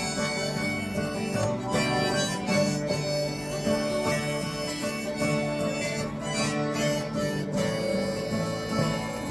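Harmonica playing a solo over guitar accompaniment in an instrumental break of the song.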